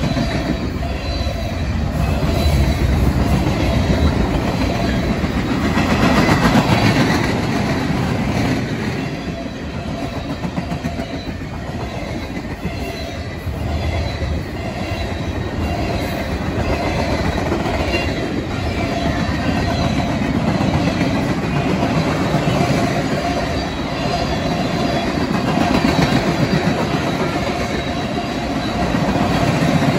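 Freight cars of a BNSF mixed freight train rolling past close at speed: a continuous rush of steel wheels on rail with clacking over the rail joints, swelling and easing as tank cars and covered hoppers go by.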